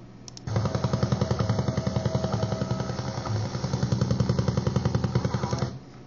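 Shortwave radio recording of the Soviet Duga-3 over-the-horizon radar, the "Russian Woodpecker", interfering with WWVH, played back through computer speakers. It is a rapid, even tapping of about ten pulses a second with a faint steady tone beneath, starting just after a mouse click, lasting about five seconds and cutting off abruptly.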